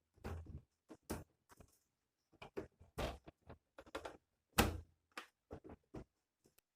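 Irregular knocks, clicks and clatters of hands and tools handling the plastic parts of a washing machine's drain valve, with one louder knock a little past halfway.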